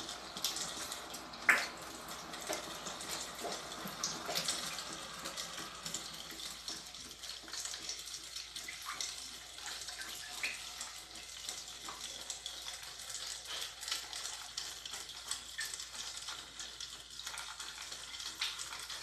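Shower water spraying and splashing into a cut plastic bottle held under it: a steady hiss of falling water with scattered droplet pops, used to simulate rain filling a homemade rain gauge. One sharp tap about a second and a half in.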